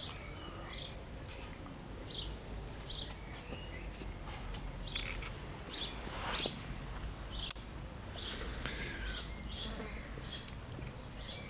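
Garden birds chirping, with short high calls repeated every half second or so, over a low background rumble.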